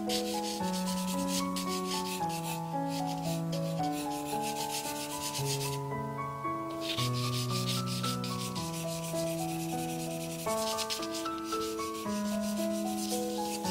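Graphite pencil scratching across drawing paper in quick, repeated shading strokes, stopping for about a second midway before starting again. Background music with sustained notes plays underneath.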